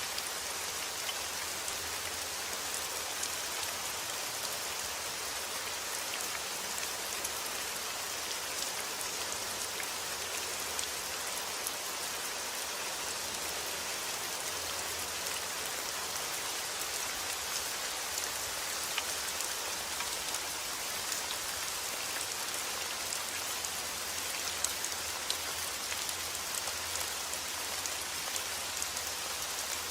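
Steady rainfall, with many individual drops pattering on a surface.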